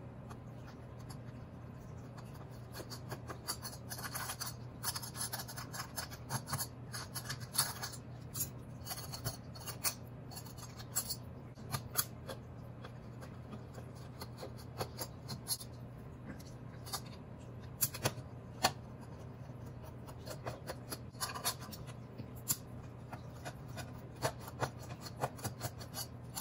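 Small screwdriver backing screws out of an LED light's anodized aluminium heat sink: irregular metal-on-metal clicks and scratches as the tip turns in the screw heads, over a steady low hum.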